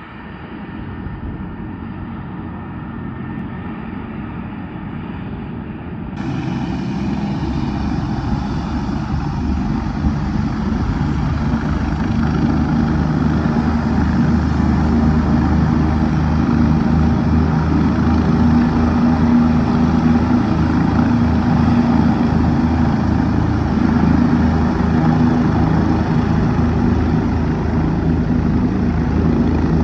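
Medevac helicopter running up on the ground before lift-off: turbine engine whine and rotor beat with a steady low hum, getting steadily louder as the rotor comes up to speed.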